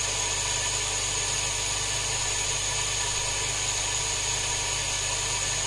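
FujiMAC RII80 linear air pump running steadily with an even hum.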